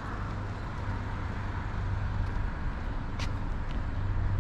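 Road traffic: a steady low rumble of passing cars that grows slightly louder in the second half, with a single sharp click about three seconds in.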